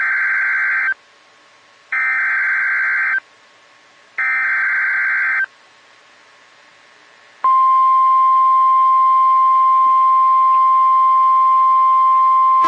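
Three Emergency Alert System SAME header data bursts, each a harsh digital screech about a second long, followed a couple of seconds later by the steady 1050 Hz NOAA Weather Radio warning alarm tone, which holds on. Together they signal that a new warning is about to be broadcast.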